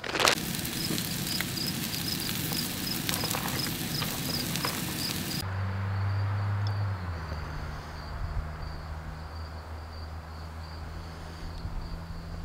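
An insect chirping in a steady, even rhythm, about three high-pitched chirps a second, over outdoor background hiss that cuts out abruptly about five seconds in, leaving a low steady hum.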